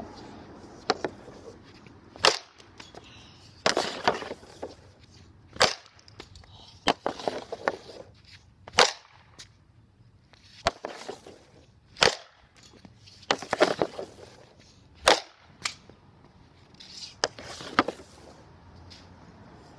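Hockey slap shots with a light composite Bauer Agent stick: a sharp crack as the blade slaps the shooting pad and drives the puck, repeating about every three seconds. Rougher scraping sounds come between the cracks.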